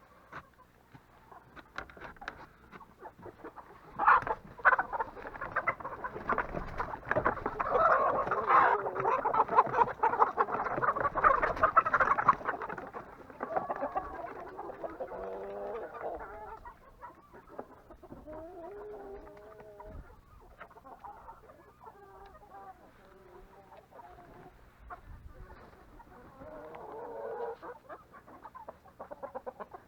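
Flock of chickens clucking and squawking as they are let out, loudest and densest from about four to thirteen seconds in, then thinning to scattered drawn-out calls. A sharp knock comes just before the loud stretch.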